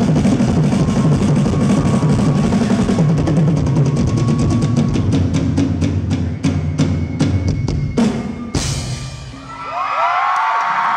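Live drum kit solo: fast rolls across drums and cymbals, then a run of evenly spaced hard strikes that ends on a big crash about eight and a half seconds in. The audience then breaks into screams and cheers.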